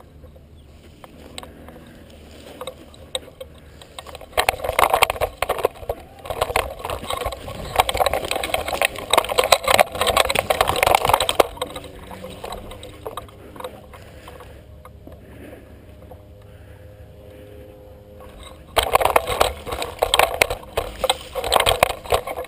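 Rustling and scraping of a person crawling over dry leaves, twigs and sandy dirt close to the microphone, in two long irregular stretches: from about four to twelve seconds in, and again near the end.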